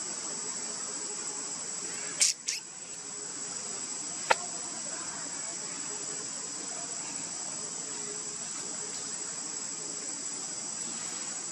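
Steady high-pitched drone of insects, crickets or cicadas, in the surrounding woodland. About two seconds in come two short loud noises close together, and a sharp click a couple of seconds later.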